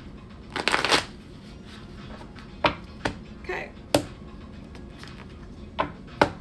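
A tarot deck being shuffled by hand: a short burst of flicking cards about half a second in, then several separate sharp card snaps and taps.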